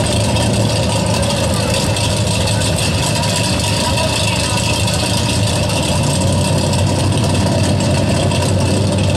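Drag cars' engines idling steadily at the start line.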